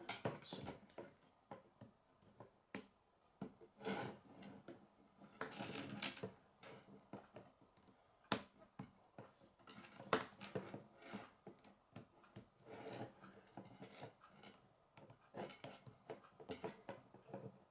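Plastic K'nex pieces being handled and snapped together: irregular, faint clicks and light rattling, with a sharper snap about eight seconds in and another about ten seconds in.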